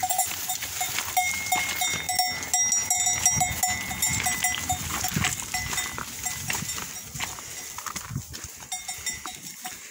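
Bells on a moving flock of sheep and goats clanking in an uneven rhythm, a few strikes a second, with one bell ringing out clearly for about three seconds from about a second in.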